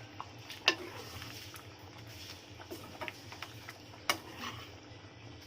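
A metal spoon stirring thick chicken gravy, knocking and scraping against the pressure cooker pot: a few sharp clinks at irregular intervals, the loudest about a second in and again near the end.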